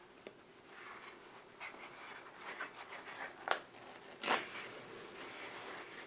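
Soft rustling and crinkling of toilet paper being handled and wrapped around a block of dry instant noodles, with small scattered handling clicks. Two sharper, louder handling noises come a little past the middle, under a second apart.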